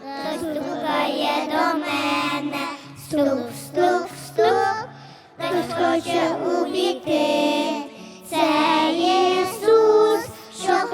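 Children singing a Ukrainian song with instrumental accompaniment that includes a moving bass line.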